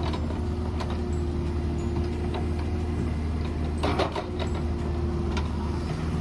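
Mini excavator's diesel engine running steadily with a steady whine over it, and a short clatter about four seconds in.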